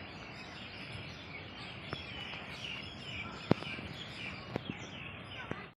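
Small birds chirping over a steady outdoor hiss, with a few sharp clicks about two, three and a half and four and a half seconds in.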